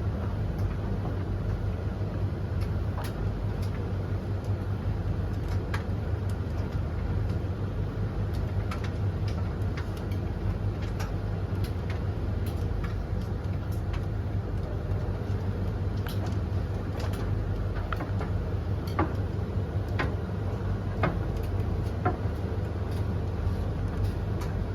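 Three tumble dryers, a Blomberg LTK310030W, a Russell Hobbs RH3VTD800 and a Hoover HLEC8TRGR-80, running together mid-cycle: a steady low hum of motors and turning drums, with scattered light clicks.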